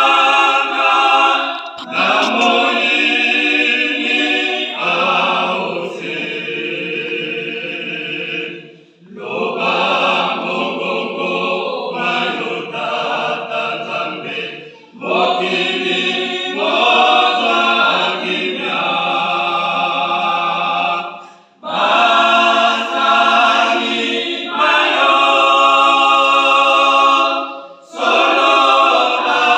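Church choir singing a Lingala gospel song unaccompanied, in long phrases broken by brief pauses about every six seconds.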